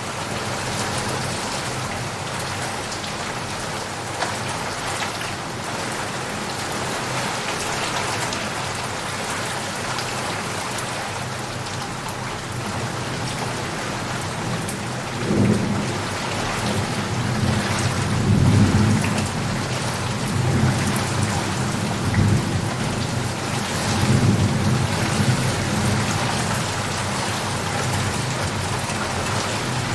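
Steady rain falling, with a long low roll of thunder rumbling in about halfway through and swelling twice before it fades.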